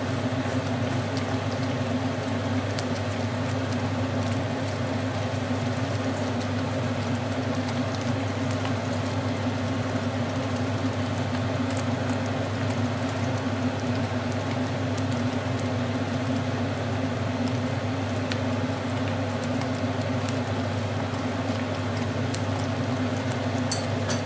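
Yogurt sauce boiling in a frying pan on an electric grill: a steady bubbling and spitting over a low hum, as the sauce reduces and thickens.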